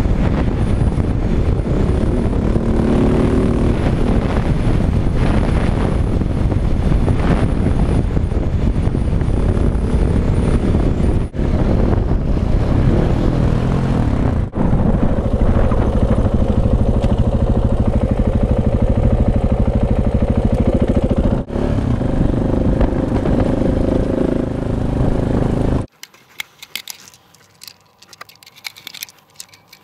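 KTM 690 single-cylinder dual-sport motorcycle riding on a dirt track, engine running with shifting pitch under heavy wind noise from the helmet camera, with brief cuts between clips. Near the end it cuts to quiet, with small clicks and rattles of something handled by hand.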